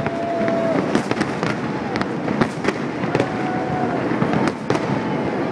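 Fireworks display going off without pause: many sharp bangs and crackles overlapping in a dense, continuous barrage.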